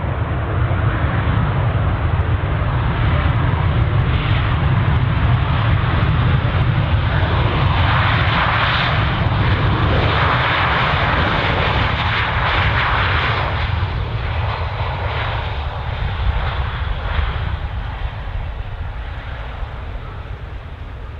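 Jet engines of a Ryanair Boeing 737-800 running as the airliner rolls along the runway: a steady roar that grows louder and brighter as it passes, about 8 to 13 seconds in, then slowly fades.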